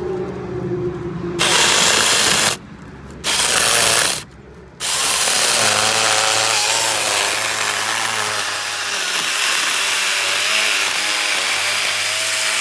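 Saker 20-volt cordless mini chainsaw cutting into a stump at ground level: two short bursts of about a second each, then one continuous cut of about eight seconds. The motor's whine wavers in pitch under load.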